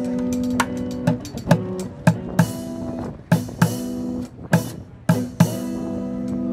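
Electric guitar played through a small amplifier, with a bucket drummer hitting plastic buckets with drumsticks; sharp drum hits land over held guitar chords that change every second or so.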